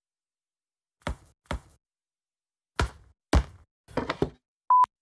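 Football being played with the feet: separate dull thuds of the ball being struck and bouncing, two about a second in, two more near three seconds, then a quick run of knocks. A short electronic beep near the end.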